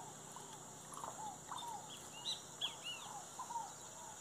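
Faint wild animal calls: a run of short arched calls repeating throughout, with a cluster of higher chirps about two seconds in, over a steady high hiss.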